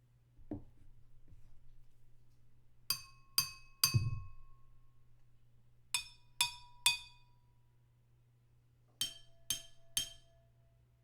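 A spoon tapping a drinking glass three quick times, repeated in three rounds, each tap ringing briefly. Each round rings at a different pitch, the last round lowest.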